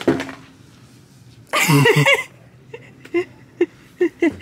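A person's voice: a loud, brief vocal cry about a second and a half in, followed by several short, clipped vocal sounds.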